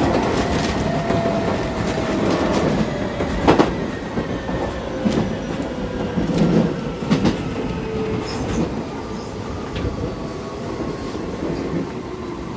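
Interior running sound of a Keisei 3400 series chopper-controlled electric train slowing into a station. The motor whine falls steadily in pitch as the train brakes. Wheels click and knock over rail joints.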